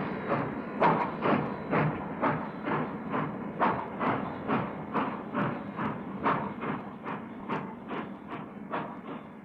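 Union Pacific 9000-class three-cylinder steam locomotive leaving the yard: a steady beat of exhaust chuffs, about two a second, slowly fading as it pulls away.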